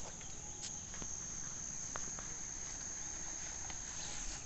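Insects chirring in one steady, high-pitched drone, with a faint rustle of footsteps through tall grass underneath.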